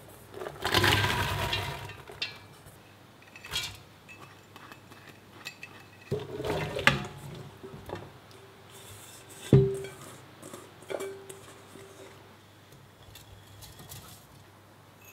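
Chopped red onions tipped from a metal bowl into an empty stainless steel pot, rattling down onto the bare base; then chopped green tomatoes tipped in. Twice a metal bowl knocks against the pot rim with a short ring, and soft brown sugar goes in near the end.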